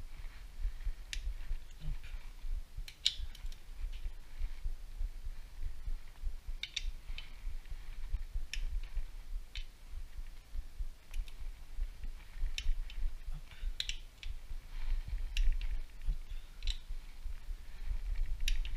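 Ratchet torque wrench tightening engine bolts to torque in a cross pattern: irregular metallic ratchet clicks, some in quick pairs, over a low rumble of handling.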